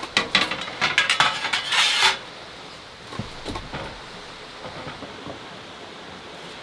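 Hard items, metal by the sound's character, clinking and clattering as they are handled: a busy run of rattles over the first two seconds, then a few light knocks and taps.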